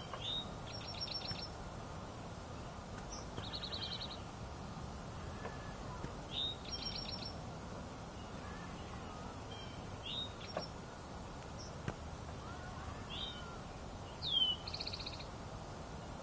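A songbird singing a short phrase over and over, about every three seconds: a slurred whistle followed by a quick trill of short, high notes. Steady low background noise, with one faint tick about twelve seconds in.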